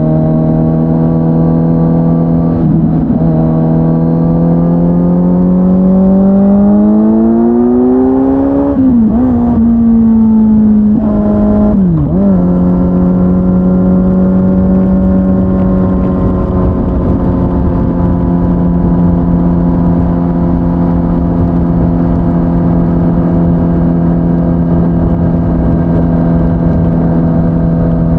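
Kawasaki Z900's inline-four engine running through an SC-Project S1 exhaust: the engine note climbs under acceleration for several seconds, drops sharply twice a few seconds apart as it shifts up, then holds a steady pitch while cruising.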